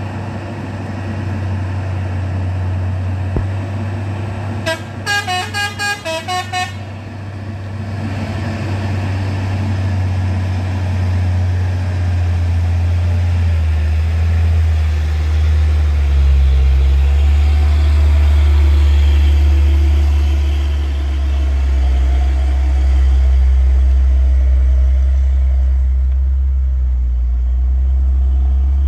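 Hino 500 truck's diesel engine labouring steadily up a steep climb, its note dropping lower about 13 seconds in and growing louder as the truck draws close. About five seconds in, a quick run of about eight short horn toots.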